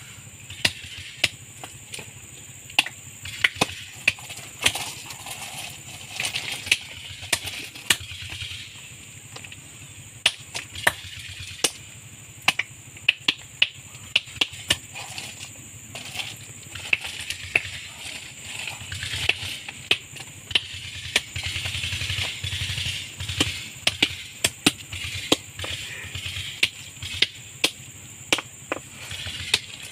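Hand hammers striking gold-bearing ore rocks: sharp, irregular clacks of steel on stone, sometimes several in quick succession, from two men crushing the ore by hand. A steady high hiss and a low hum run underneath.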